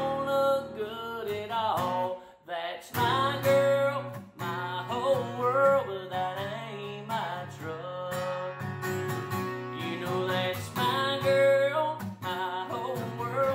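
Takamine acoustic guitar strummed in a country song, with a man's voice singing long, sliding notes over it.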